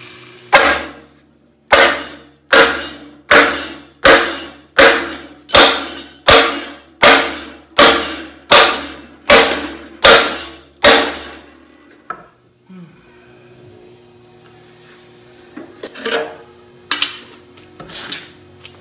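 Sledgehammer striking a welded-on bracket on a tractor's steel frame. About fourteen ringing metal-on-metal blows come at a steady pace, a little faster than one a second, and stop about 11 s in. A few lighter knocks follow near the end.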